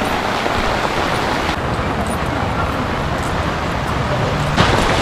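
Steady rushing noise of heavy rain and floodwater. It changes abruptly twice, and near the end wind buffets the microphone.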